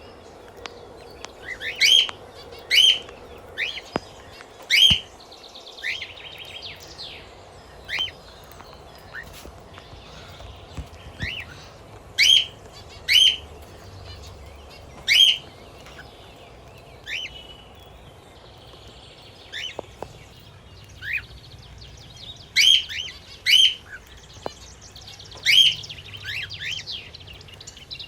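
Pet parrots, a cockatiel and budgerigars, chirping: loud, short, sharp chirps, often in quick pairs, every second or two, over softer warbling chatter.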